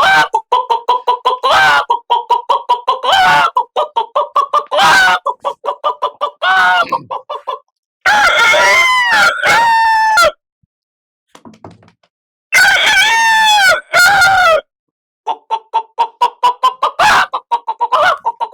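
A man imitating a hen with his mouth: long runs of rapid clucking, and twice, about eight and twelve seconds in, a long, drawn-out squawking call, as a hen makes when someone tries to catch it.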